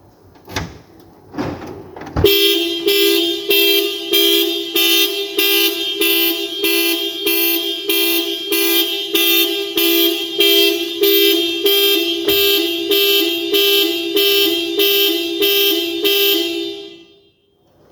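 A few clicks from the key and door lock, then the car alarm going off: the horn honks in a steady pulse about twice a second, set off by opening the remote-locked door with the key. The honking cuts off suddenly near the end.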